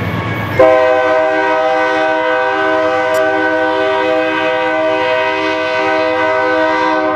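BNSF diesel locomotive's air horn sounding one long, steady multi-tone blast that starts suddenly about half a second in, after the low rumble of the approaching freight train.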